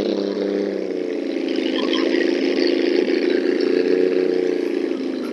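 Triumph GT6's straight-six engine running at low revs as the car pulls slowly away over grass, a steady note that rises and falls gently in pitch.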